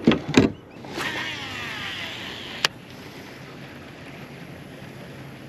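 Two sharp knocks, then a fishing reel's spool whirring with falling pitch as a lure is cast, stopped by a sharp click; after that only a faint steady low hum.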